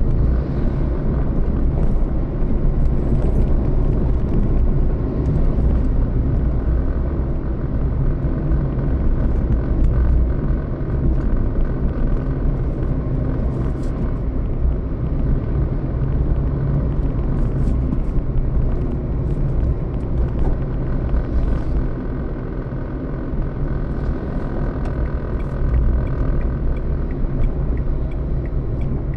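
Steady rumble of a road vehicle in motion: a continuous low engine hum with road noise.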